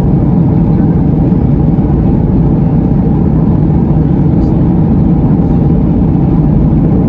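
Steady cabin noise of a Boeing 737 MAX 8 in flight: the drone of its CFM LEAP-1B turbofan engines and the rush of air, loud and unchanging, heard from a window seat inside the cabin.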